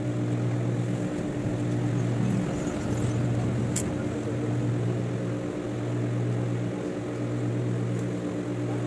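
Industrial sewing machine's electric motor running with a steady low hum that eases slightly every second or so.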